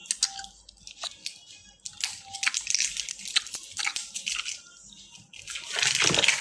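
Close-up crunching and chewing of crunchy candy, a run of sharp crackles, with a louder rush of noise about six seconds in.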